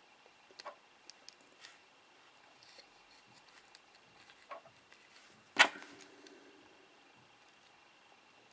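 Small clicks and taps of handling a small plastic quadcopter and hand tools, with one sharp, much louder click a little past halfway followed by a short ring.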